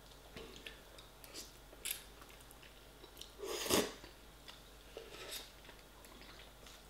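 A person slurping and chewing pot noodles from a fork, with small wet mouth sounds and clicks; one louder slurp comes about halfway through.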